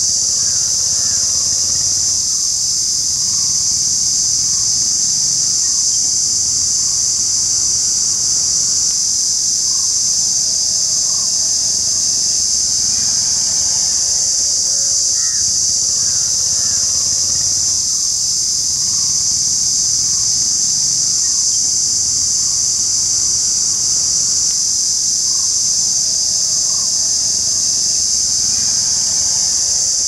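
Indian cicada singing one continuous, unbroken high shrill buzz at a steady loud level, made by the male vibrating its tymbals.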